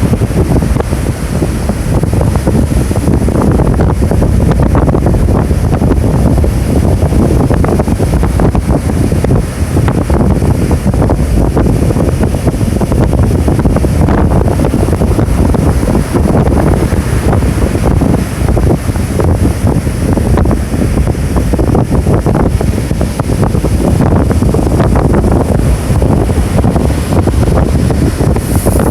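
Typhoon wind buffeting the microphone with a loud, continuous low rumble, over heavy ocean surf breaking on the shore.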